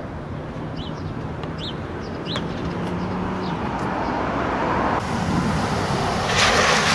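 Road traffic: a passing vehicle's noise swells steadily and is loudest near the end. Three short high chirps sound in the first couple of seconds.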